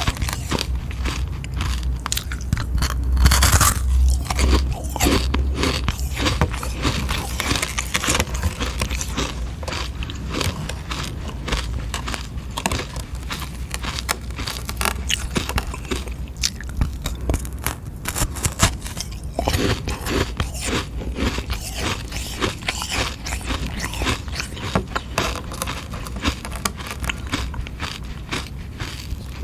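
Biting and chewing a frozen sugar-water ice lolly: dense crackling crunches as the ice breaks between the teeth, loudest a few seconds in.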